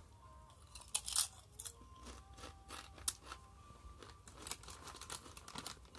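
Crunching and chewing a Doritos tortilla chip: a run of sharp, crisp crunches, loudest about a second in, then scattered smaller crunches.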